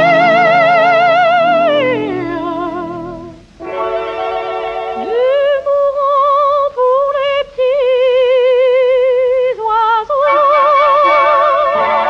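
Music from a 1938 78 rpm record of a French music-hall song with orchestra. A high melody with wide, even vibrato holds a note, slides down about two seconds in, then moves through a phrase of short, detached notes.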